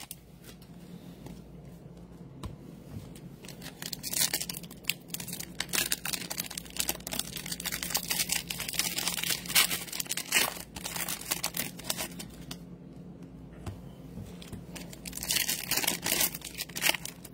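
Baseball-card pack wrappers crinkling and tearing as packs are opened by hand, in irregular rustles that come and go, louder in a few spells.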